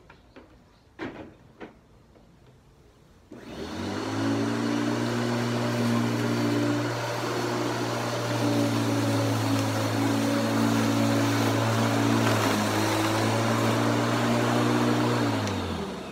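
Walk-behind lawn mower's engine starting about three seconds in after a couple of clicks, running steadily at one speed, then shut off near the end, its pitch falling as it winds down.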